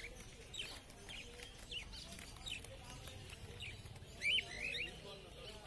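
Small caged finches giving soft, scattered short chirps, with a louder pair of arched notes about four seconds in.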